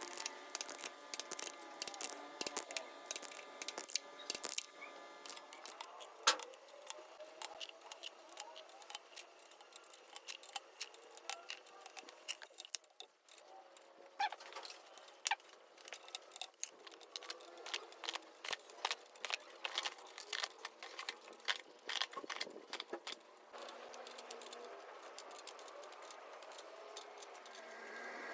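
Irregular metallic clicks and clinks of hand tools and metal engine parts being handled, fast and dense in spells with brief lulls.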